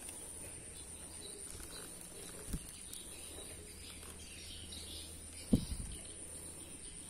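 Steady high-pitched insect drone over faint outdoor ambience, broken by a soft thump about two and a half seconds in and a louder thump at about five and a half seconds.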